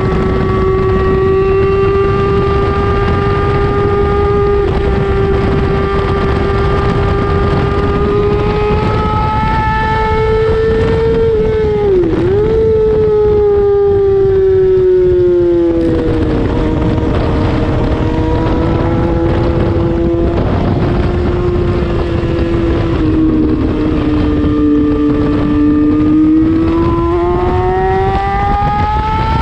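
Racing motorcycle engine heard from an onboard camera at speed, with wind rushing over the microphone. The engine note holds steady, dips and jumps back briefly about twelve seconds in, falls as the bike slows, holds at lower revs, then rises again near the end as it accelerates.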